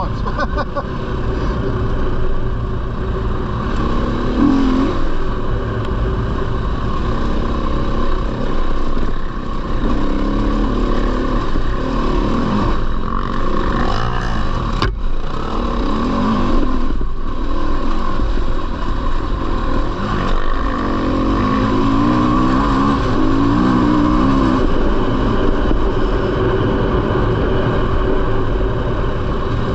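Four-stroke single-cylinder dirt bike engine being ridden, its revs rising and falling with the throttle, over a constant low wind rumble on the microphone. There is a single sharp knock about halfway through.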